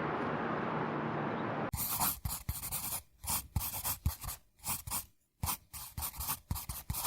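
A held music chord fading out, then a quick irregular run of short scratching strokes for about six seconds that stops abruptly near the end.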